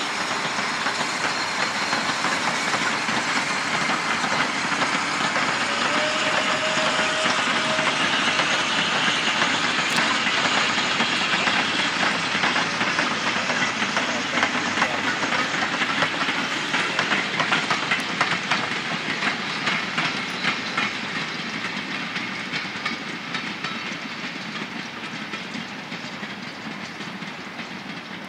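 A steam-hauled goods train's wagons rolling past, their wheels clicking over the rail joints, with the exhaust of the Bulleid light pacific at its head carrying on ahead. The sound fades steadily over the last ten seconds as the brake van goes by and the train draws away.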